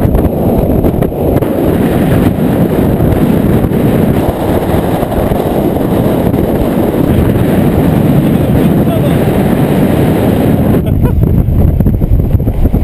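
Strong wind buffeting an action camera's microphone: a loud, steady low rumble.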